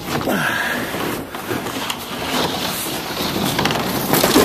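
Plastic drop-in pickup bed liner being pulled and dragged out of the truck bed, scraping against the bed with scattered knocks and rustling throughout.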